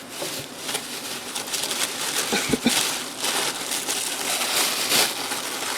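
Tissue paper wrapping crinkling and rustling steadily as an item is dug out of a box and unwrapped, with a couple of soft knocks about halfway through.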